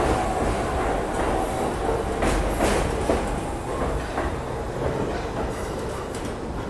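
R68 subway train pulling out of an elevated station and moving away, its wheels clacking over rail joints with a steady rumble that slowly fades.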